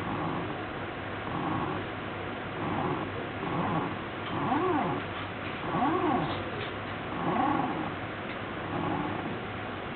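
ShapeOko desktop CNC mill's stepper motors driving the axes through repeated short moves. Each move is a whine that rises and then falls in pitch, about one a second, loudest midway.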